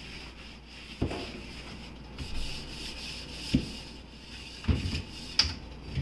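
Hand scrubbing the inside corners of a refrigerator, a steady scratchy rubbing with a few light knocks against the fridge.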